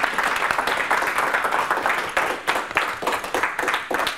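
Audience applauding, many hands clapping at an even level.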